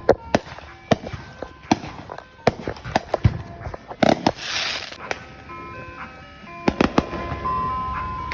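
Firecrackers going off: a dozen or so sharp bangs at irregular spacing, with a hissing crackle about four seconds in. Under them a simple electronic tune of plain held notes plays.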